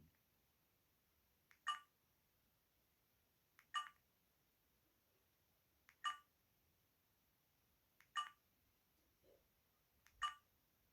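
Alcatel VM202 mobile phone's keypad tones: five short key-press beeps about two seconds apart, each just after a faint click of the key, as the handset's menu is stepped through.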